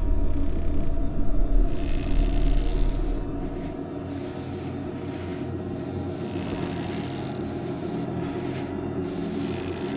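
Low, ominous horror-soundtrack drone: a deep rumble under sustained steady tones. The deep rumble falls away about three and a half seconds in, leaving a quieter steady drone.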